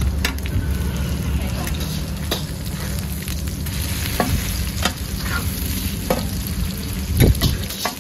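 Food stir-frying in a hot pan, sizzling steadily, with a metal spatula striking and scraping the pan every second or so. The loudest clang comes about seven seconds in, over a constant low rumble.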